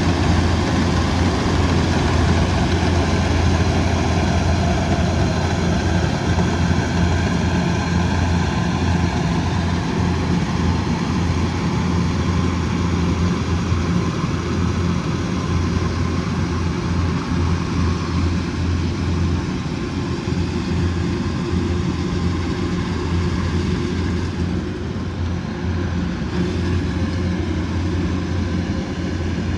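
Kubota DC108X combine harvester's diesel engine running steadily with a constant low hum.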